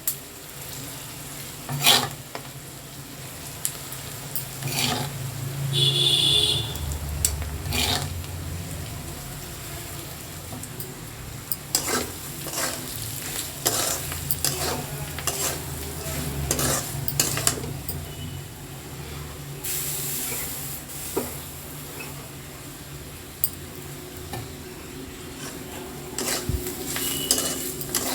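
Metal spatula stirring semolina in a kadai, knocking and scraping against the pan at irregular intervals over a steady low hum, with a brief ringing clink about six seconds in.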